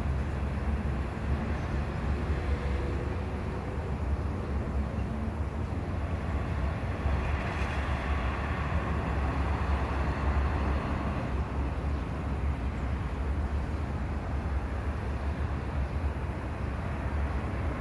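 Street traffic: a steady low rumble, with a passing vehicle growing louder and fading again around the middle.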